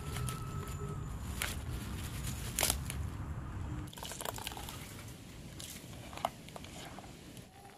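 Leaves handled with a few sharp snaps over a low rumble, then, about four seconds in, wet squishing and dripping as pounded common blue violet leaves are squeezed and kneaded by hand in water.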